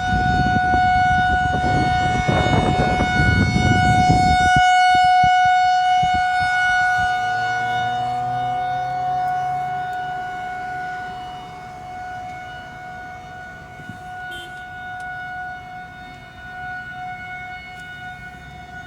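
Outdoor tornado warning siren sounding one steady tone, the signal of an active tornado warning; it is loud at first and slowly fades from about six seconds in. A low rumble underneath cuts off suddenly about four and a half seconds in.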